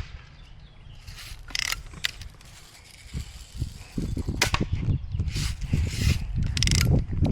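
Red Ryder lever-action BB gun handled and fired: a few short clicks and rustles, then one sharp crack about four and a half seconds in. Wind rumbles on the microphone through the second half.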